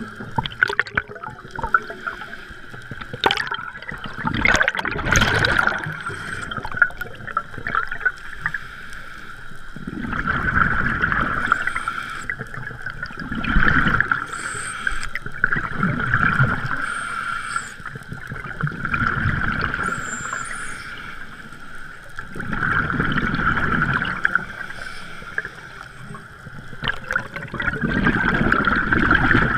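Scuba breathing through a regulator underwater: bubbly exhalations rumble up and fade about every four seconds, over a constant hiss. A few sharp clicks sound in the first seconds.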